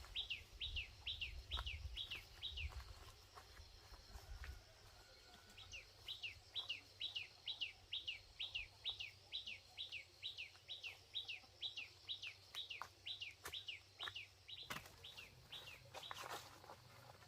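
A bird calling a short falling chirp over and over, about three a second, stopping for a few seconds and starting again, with a few knocks near the end.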